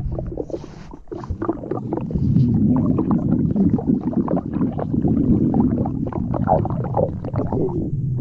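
Stomach growl sound effect: a long run of wet gurgles and rumbles. It eases off for a moment about a second in, then carries on loud and unbroken.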